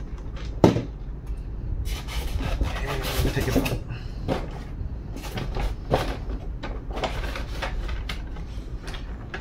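Plastic RC tank model being lifted out of its styrofoam packaging tray and turned over by hand: rubbing and scraping of plastic against foam, with a sharp knock under a second in and scattered clicks and knocks.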